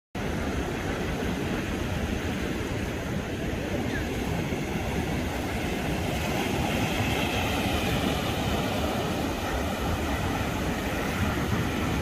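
Pacific Ocean surf: waves breaking and foam washing up the sand, a steady rushing sound with a deep rumble underneath, swelling a little about seven seconds in as a wave runs up the beach.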